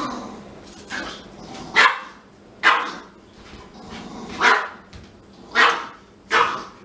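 Dog barking: five short, sharp barks, roughly a second apart.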